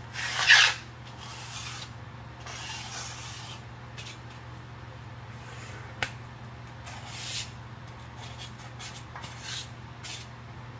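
Short brushing and scraping strokes of debris across a garage floor as metal filings and small scraps are cleared by hand. The loudest stroke comes about half a second in, with a couple of sharp clicks of small pieces later, over a steady low hum.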